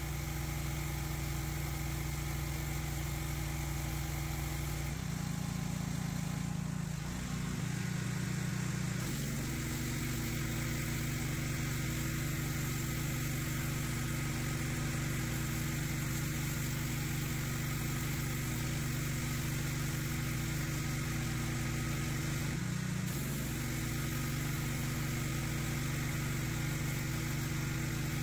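Pressure washer running steadily while its jet hisses against a concrete path. The machine's low drone shifts in pitch a few times, around five seconds in, around eight seconds in and again past twenty seconds.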